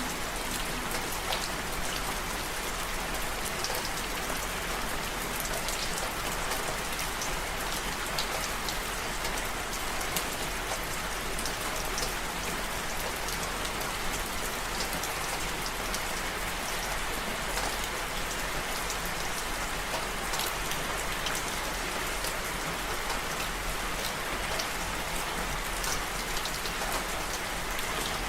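Steady rainfall: an even hiss of rain with many individual drops ticking sharply on a surface.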